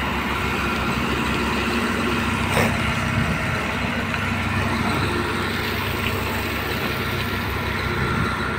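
Steady diesel engine hum of road-construction machinery working a gravel sub-base bed, with one brief knock about two and a half seconds in.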